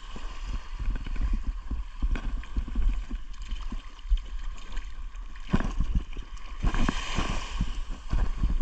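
Shallow seawater sloshing and splashing as a small hooked barracuda is played at the surface, over a steady low rumble.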